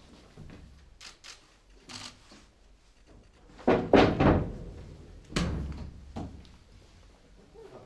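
Heavy wooden coffin lid knocking as it is set down and shifted into place on the coffin: three quick heavy thunks a little past the middle, another about a second later and a fainter one after it. Each knock echoes briefly in the vaulted crypt.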